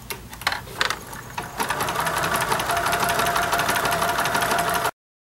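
A few clicks and rustles as the pinned quilt is shifted under the presser foot. Then, about a second and a half in, a computerized sewing machine starts stitching at a steady fast pace, sewing a blanket stitch around a fused appliqué edge. The sound cuts off suddenly near the end.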